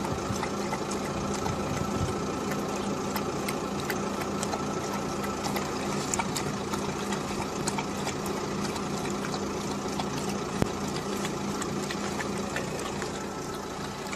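A steady mechanical hum like an idling engine, with many faint quick clicks over it from an animal lapping water out of a plastic tub.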